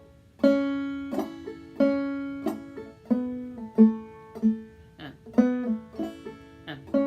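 Five-string banjo played clawhammer style, slowly, in A (capoed), starting about half a second in with evenly spaced picked notes that ring between strikes.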